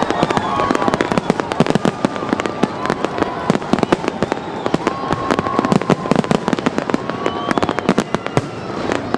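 Fireworks display going off in quick, uneven succession: a continuous crackle of many sharp bangs and pops.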